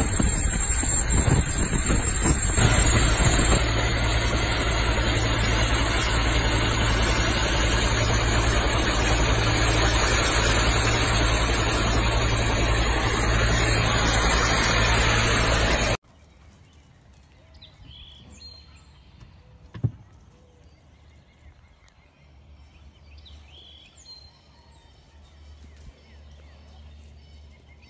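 Loud, steady roar of rushing air and jet engines from a jet-powered wing flight, with a low hum underneath. It cuts off suddenly about 16 seconds in, leaving a much quieter background with a few faint short sounds and one sharp click.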